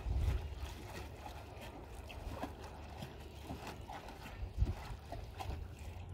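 Wet cast net being hauled in by hand over the bow of a wooden boat: irregular drips and small splashes of water falling from the net, with a low rumble in the first half-second and a single knock about four and a half seconds in.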